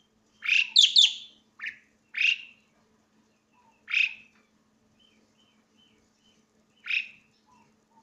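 Asian pied starling (jalak suren) calling loudly and shrilly: a quick run of sharp, sweeping calls in the first second and a half, then single calls about two to three seconds apart. Faint short chirps come between them.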